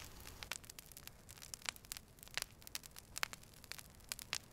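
Faint crackling of a wood fire: irregular small pops and snaps, several a second, over a low hiss.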